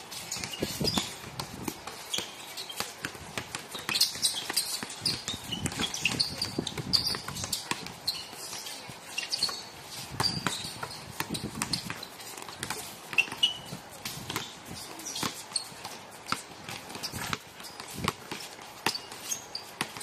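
A basketball bouncing on an outdoor hard court during a pickup game: irregular dribbles and thuds, with short high squeaks scattered through.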